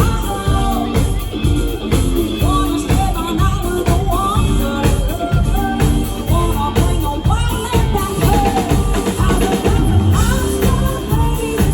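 Pop-rock song playing, with a steady drum beat and a singing voice.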